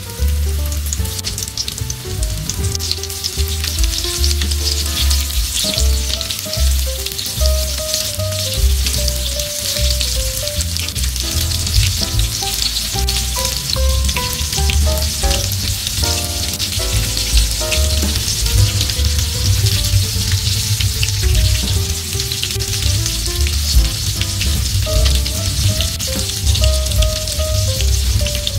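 Banana pieces coated in ambok rice flakes deep-frying in a wok of hot oil, a steady sizzle full of small crackling pops. Background music with a melody and bass plays underneath.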